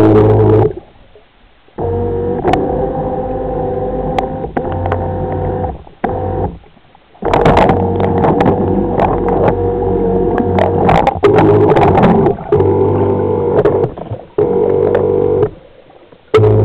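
Small electric motors of a SeaPerch ROV whining in several bursts of one to five seconds, starting and stopping abruptly as they are switched on and off, with scattered sharp clicks.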